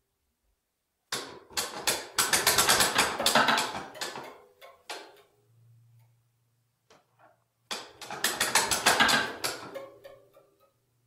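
Toy piano keys struck in rapid clattering repeated strokes, in two bursts of a few seconds each, with a faint low steady hum in the gap between them.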